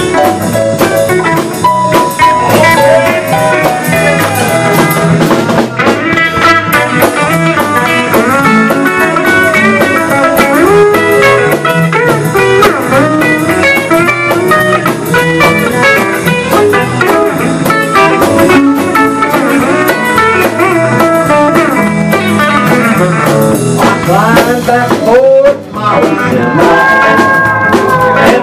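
Live country band playing an instrumental break with no singing: electric guitar, bass guitar, drum kit and keyboard, with sliding, bent lead notes. The music dips briefly near the end, then comes back with a sweeping slide.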